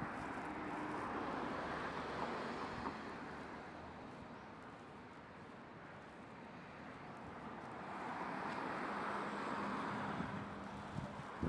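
Road traffic: vehicles passing by, their tyre and engine noise swelling and fading away, then swelling again near the end.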